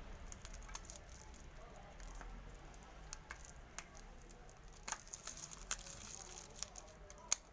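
Plastic fish-transport bag being handled, giving scattered crinkles and small sharp clicks that come thicker in the second half, with one sharp click near the end.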